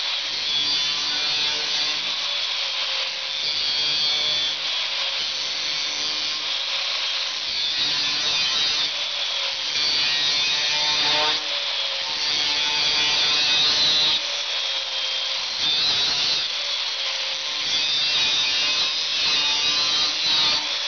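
Angle grinder with a thin cut-off disc cutting through sheet steel: a continuous high-pitched grinding hiss of the disc in the metal over the motor's whine, the pitch dipping slightly now and then as the disc is pressed into the cut.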